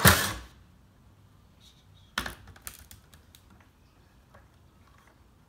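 Cordless drill running briefly to back out a screw holding a speaker's tweeter horn. About two seconds later comes another short burst, then a quick run of small clicks and knocks.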